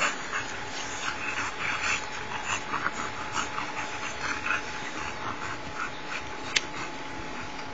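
An Old English bulldog and a pit bull play-fighting, giving short, irregular bursts of scuffling and dog noises that thin out after about six seconds, with one sharp click about six and a half seconds in.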